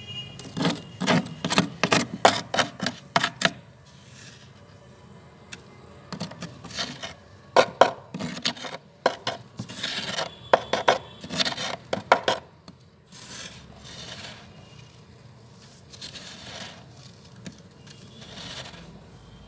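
Fingernails scraping and crunching soft white freezer frost: two runs of quick, sharp scrapes, the first in the opening few seconds and the second from about six to twelve seconds in, then quieter crunching as the frost is gathered by hand.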